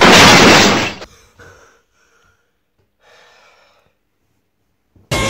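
A loud crash-like burst of noise that dies away over about a second, followed by a few faint sounds and near silence.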